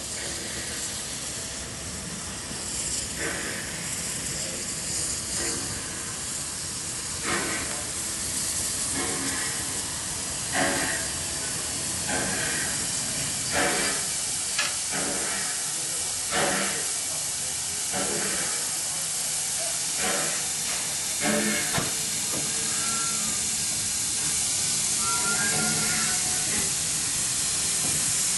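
DD17 class 4-6-4T steam tank locomotive drifting slowly in past the platform with a steady steam hiss and a slow, uneven beat of exhaust chuffs about every one to two seconds, growing louder as it comes closer.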